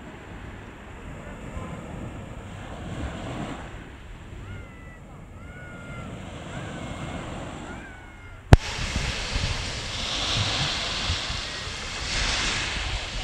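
Small sea waves breaking and washing up on a beach, a steady surf wash, with short bird chirps faintly over it in the first half. About two-thirds of the way in there is a sharp click, and after it the surf is louder, with two swells of breaking waves.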